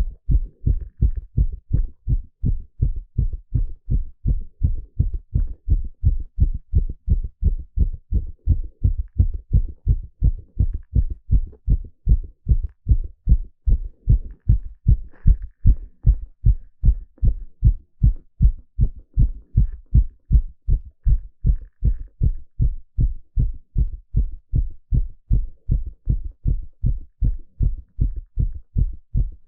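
A man's heartbeat heard through a stethoscope on the chest: a steady, regular run of deep lub-dub thumps.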